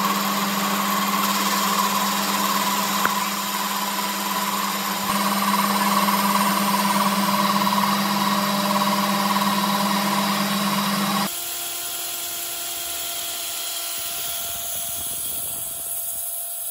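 Metal lathe running with a steady hum, spinning a steel tube shaft. About 11 seconds in the sound changes to a quieter drill press drilling into a steel plate.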